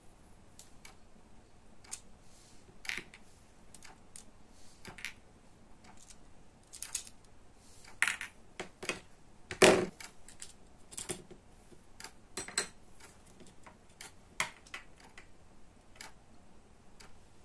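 Scattered small clicks and taps of a plastic quartz clock movement and its tiny gears being taken apart by hand and set down on a tabletop, with one louder knock about ten seconds in.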